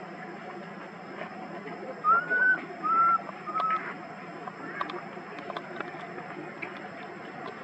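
Baby long-tailed macaque giving three short, high, arching coos in quick succession about two to four seconds in, over a faint steady high-pitched tone.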